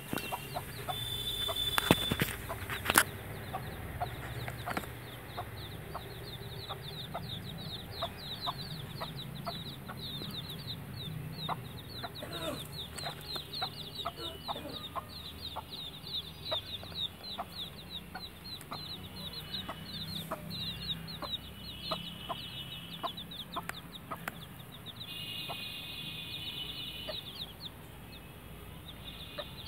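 Week-old chicks peeping constantly in quick, high, falling notes while a mother hen clucks low among them. Two sharp knocks sound about two and three seconds in.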